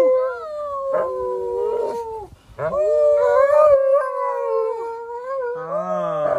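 Alaskan Malamute howling in long, wavering howls, with a short break about two seconds in and another call starting near the end: an excited greeting for a favourite visitor.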